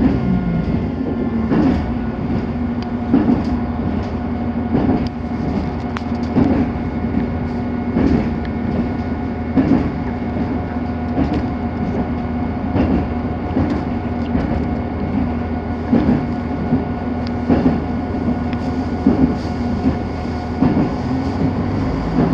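Wheels of an RA3 diesel railbus clattering over rail joints, heard from inside the car: a regular knock about every second and a half over a steady running rumble and hum.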